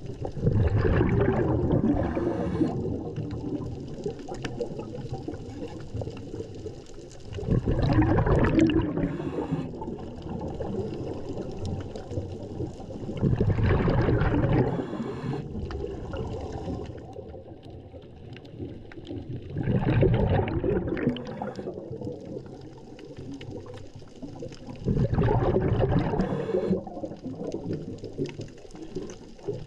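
Scuba diver breathing through a regulator underwater: five loud bubbling exhalations about every six seconds, each followed by a short hiss.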